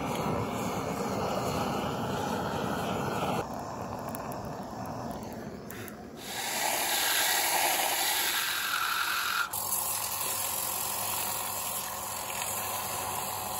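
Wood lathe spinning a wood-and-epoxy bowl, with a turning tool cutting into it and then sandpaper rubbing against it, in short edited clips whose sound changes abruptly every few seconds.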